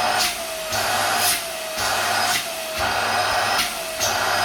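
Midea 2-in-1 mini stick vacuum cleaner (400-watt motor) running at full suction: a steady motor whine under a rush of air that swells and eases about once a second, the whine dipping slightly with each swell.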